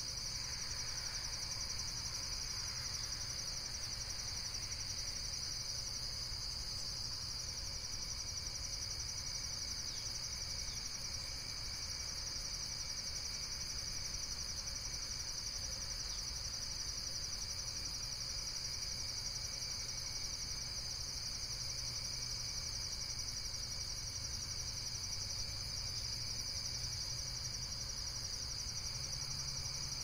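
Steady insect chorus: a continuous high, rapidly pulsing trill of crickets, unbroken and even, over a faint low background rumble.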